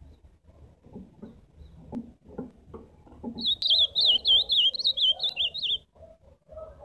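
Ultramarine grosbeak (azulão) singing one quick warbling phrase of rapid up-and-down notes, lasting about two and a half seconds and starting about three and a half seconds in, over faint low background sounds.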